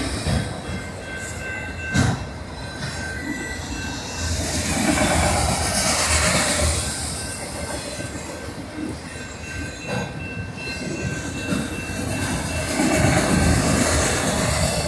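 Freight train of autorack cars rolling past, its wheels rumbling and clacking over the rails with a thin, steady high squeal. There is a sharp knock about two seconds in and another near the middle.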